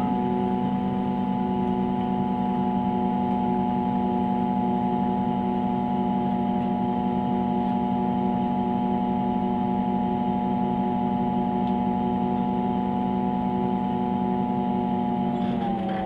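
Engine of a MAN Lion's City CNG city bus heard from inside the passenger cabin at a standstill, giving off the odd steady humming drone of several pitches at once that the uploader calls its funny engine sound. Near the end the tones dip briefly in pitch.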